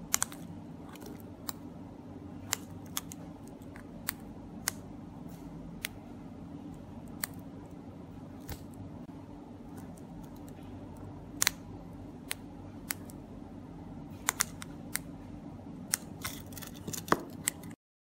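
Sharp, irregular clicks of the plastic buttons on 433 MHz key-fob remote controls being pressed, coming closer together near the end, over a steady low hum. The sound stops suddenly just before the end.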